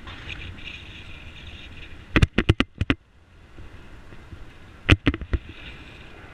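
Bicycle and its mounted camera rattling over bumps in the road surface: two quick clusters of sharp knocks, about two seconds in and again near five seconds, over steady wind and road noise.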